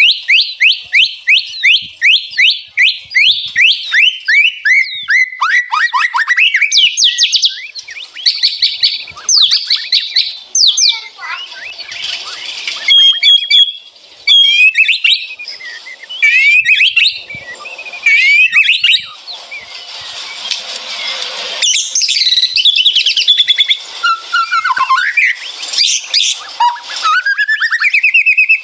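White-rumped shama singing a loud, varied song: fast runs of repeated whistled notes sweeping downward, broken by harsh rattling chatter, the 'ngeretek' style.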